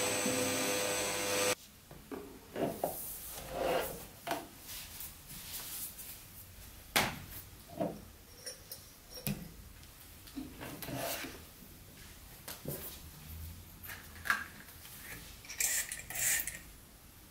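Background music that cuts off about a second and a half in, followed by scattered small knocks, clicks and rubbing sounds of household objects being handled and set down during cleaning.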